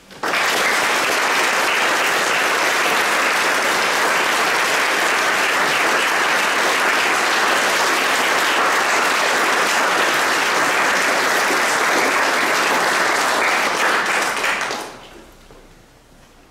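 Audience applauding: the clapping starts at once, holds steady and dies away quickly about fifteen seconds in.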